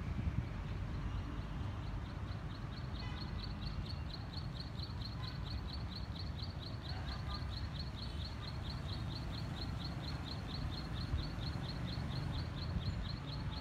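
A rapid, even series of short high chirps from a small animal, about four or five a second, starting a couple of seconds in and keeping on steadily, over a low outdoor rumble.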